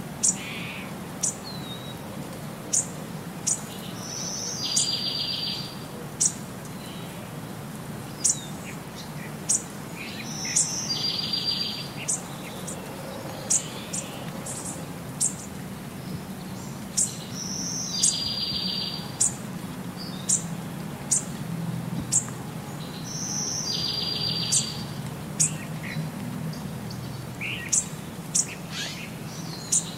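Birds chirping: short, sharp, high chirps about once or twice a second, with a buzzy trill that comes back about every six and a half seconds in the same shape, as in a looped birdsong recording.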